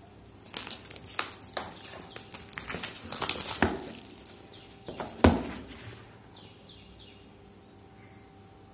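A small blade slitting the seal on a cardboard smartphone box: a run of short scrapes and clicks, then one sharp thump of the box being handled about five seconds in.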